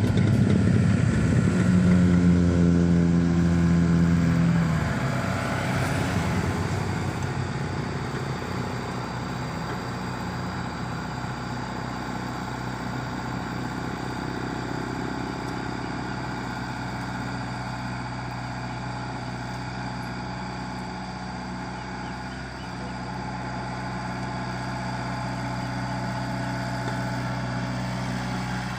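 Komatsu PC75UU excavator's diesel engine running, louder and higher for the first few seconds, then settling to a steady, quieter run.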